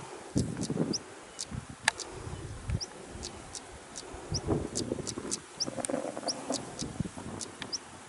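Male European stonechat giving its hweet-tack call: sharp, stone-like tack notes about two or three a second, with a short, thin, rising whistle every second or so. This is the species' typical alarm call. A low, irregular rumble runs underneath.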